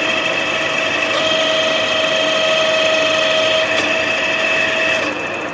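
6R12 vertical milling machine running with its table on rapid traverse: a steady, high gear whine that cuts off with a click about five seconds in, leaving the machine running.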